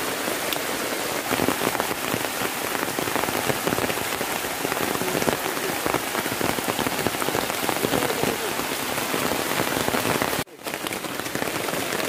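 Heavy rain falling, a dense, steady patter of drops hitting surfaces. The sound cuts out for a moment about ten and a half seconds in, then resumes.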